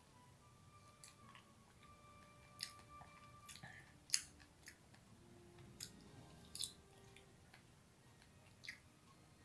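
Close-up chewing of soft dragon fruit: a string of short wet mouth clicks and squishes, the loudest about four seconds in, over faint background music.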